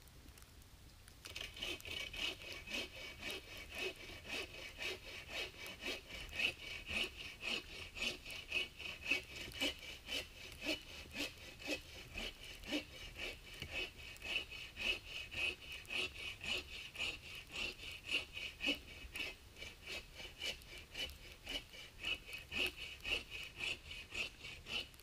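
Hand saw cutting wood in steady back-and-forth strokes, about two a second, starting about a second in and stopping near the end.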